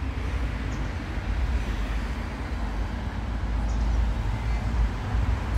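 Low rumble of road traffic going by, growing slightly louder.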